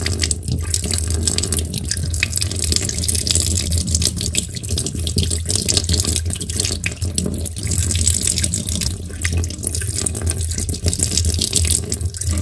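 Kitchen tap running steadily, the stream pouring through a fine stainless-steel mesh sieve of milk kefir grains and splashing into a stainless-steel sink.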